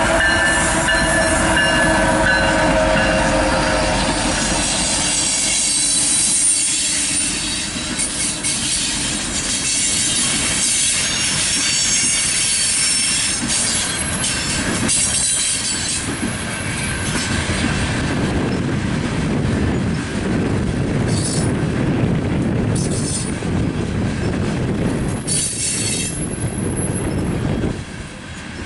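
BNSF coal train passing close by. A GE ES44AC diesel locomotive goes by first with its engine running, then a string of coal hopper cars rolls past with a steady rumble of wheels on rail, some high wheel squeal and occasional clacks.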